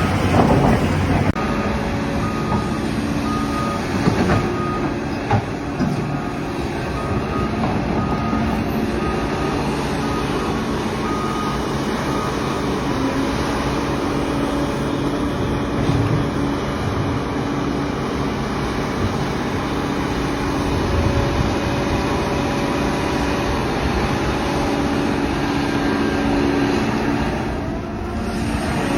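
Excavator's diesel engine running steadily at work. A backup alarm beeps in short, regularly spaced beeps through roughly the first third.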